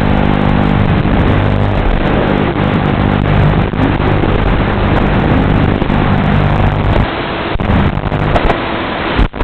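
FPV quadcopter's brushless motors whining, the pitch rising and falling with the throttle. About seven seconds in the low hum drops away.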